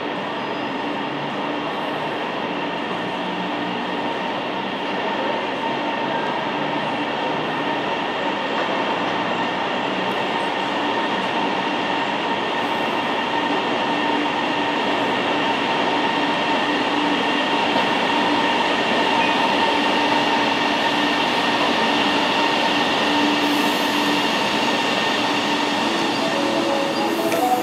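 CSR electric multiple unit rolling slowly into a terminal station. It gives a steady running hum with several held tones over it, growing gradually louder as it draws alongside.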